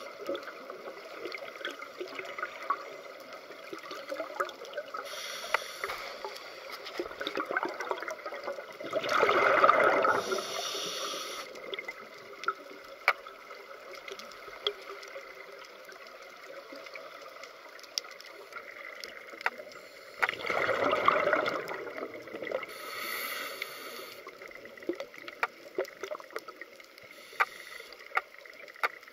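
Scuba diver breathing through a regulator underwater: two loud rushes of exhaled bubbles, about nine and twenty seconds in, with short high hisses of inhalation between them. Scattered sharp clicks run throughout.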